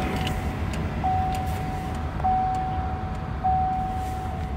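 Chevrolet pickup's dashboard warning chime: one steady tone held for about a second and repeating with short gaps, sounding with the key in the ignition and the driver's door open, over a low steady rumble.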